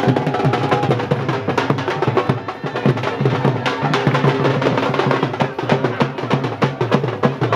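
Drums beating a fast, dense rhythm of many quick strokes.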